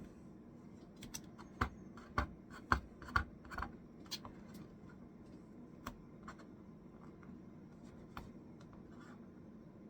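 Light clicks and taps of fingernails picking at a sticker on a computer part: a quick run of about eight in the first four seconds, then a few scattered ones.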